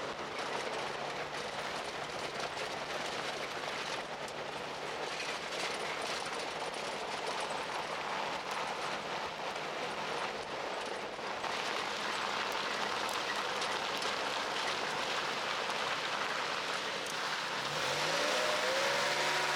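Vehicle driving: a steady rush of road and wind noise under a low engine hum, with the engine note rising near the end as it speeds up.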